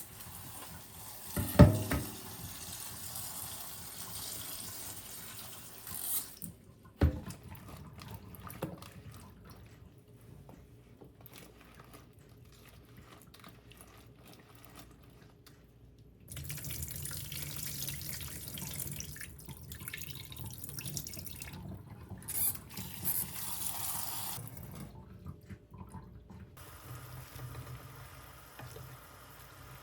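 Water running from a tap into a sink in stretches, with a few knocks of things being handled, the loudest about two seconds in.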